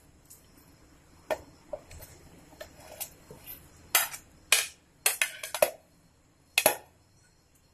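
Plastic plate tapping and knocking against the rim of a steel mixer jar as coriander leaves are pushed in: a string of irregular sharp taps, with a quick cluster about five seconds in.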